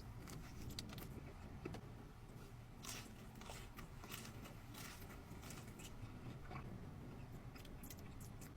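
Someone biting and chewing food close to the microphone: faint, irregular crunches and mouth clicks over a low hum.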